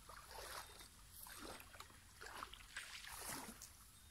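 Faint sloshing of muddy pond water around people wading waist-deep and hauling in cast nets, a soft swish every half second to a second.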